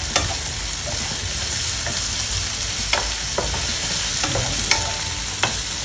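Sliced onions and ginger sautéing in hot oil in a nonstick pan: a steady sizzle, stirred with a wooden spatula that knocks against the pan a few times.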